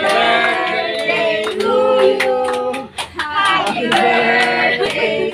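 Voices singing with hand clapping; the singing breaks off briefly about halfway through.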